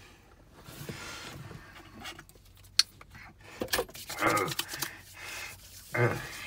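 Hands rubbing and wringing together, with one sharp click about three seconds in and a man's short vocal noises near the middle and near the end.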